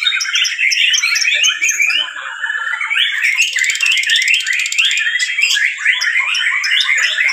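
Several white-rumped shamas (murai batu) singing at once, their fast, varied song phrases and trills overlapping into a dense, continuous chorus, with a fast buzzy trill over the top for about a second near the middle.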